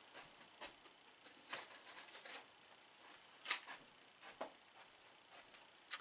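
Faint, scattered clicks and knocks, about half a dozen, in a quiet small room: a person moving about and handling things. The sharpest come about three and a half seconds in and just before the end.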